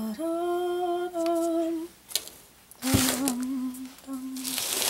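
A woman humming a wordless tune in long held notes. About three seconds in a sharp knock as a metal measuring cup of flour is set down on the counter, with rustling near the end.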